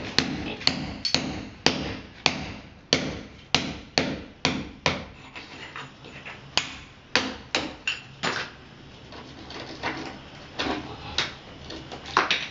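Hammer blows chipping at the plaster and concrete of a tiled wall around an old water pipe, about one to two sharp strikes a second, with two short pauses and a few weaker blows near the end.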